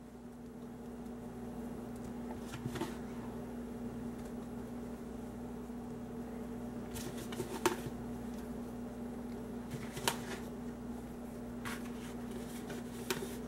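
Soft, scattered knocks and clicks as flour-coated chunks of beef stew meat are dropped by hand into a slow cooker crock, a few at a time, over a steady low electrical hum.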